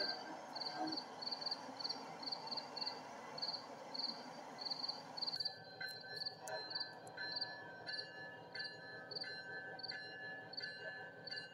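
An Amtrak passenger train going by as a steady rushing noise, with insects chirping in an even rhythm of about two to three chirps a second. About halfway through the rushing stops abruptly, leaving a faint steady whine and the chirping.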